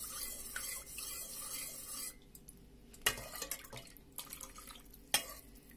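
Metal ladle stirring thin broth in a stainless steel pot: a swishing of liquid for about two seconds. Then the ladle is lifted and broth drips back into the pot, with two sharp clinks of metal on metal and a few lighter ticks.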